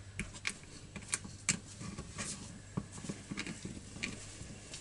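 Scattered small clicks and taps of hand work on a chainsaw's plastic recoil starter: a screw with a washer and a screwdriver being set into the centre of the starter pulley.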